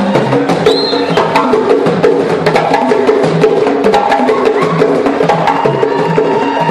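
Live African hand drumming: a djembe and a set of hand drums playing a steady, dense rhythm with sharp slaps.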